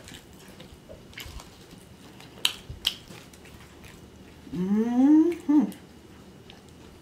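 Closed-mouth chewing of a fried stuffed jalapeño with a few sharp mouth clicks, then a rising hummed "mmm" of enjoyment about two-thirds of the way in, ending in a short falling hum.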